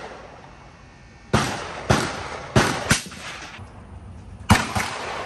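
Ruger SFAR semi-automatic rifle firing: six sharp gunshots at uneven intervals, the last two about a quarter of a second apart near the end.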